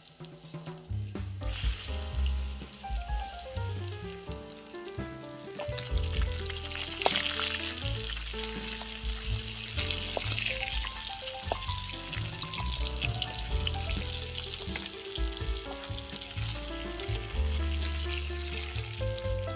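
Food sizzling as it fries in hot oil, a steady hiss that starts about a second and a half in, with background music playing over it.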